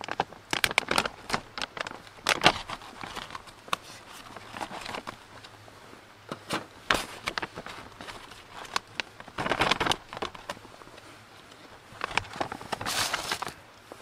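Plastic snack wrappers crinkling and rustling as they are handled and torn open, in irregular bursts with sharp crackles. The longest bursts come about ten seconds in and again near the end.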